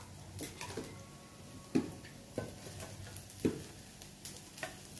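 Slotted spatula scraping and knocking against a frying pan as fried rice is pushed out onto a plate: a handful of separate sharp knocks and scrapes, the loudest just under two seconds in.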